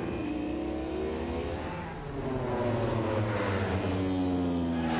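MotoGP racing motorcycle engine at high revs, its pitch sliding slowly downward, then swelling again with a second falling note about two seconds in.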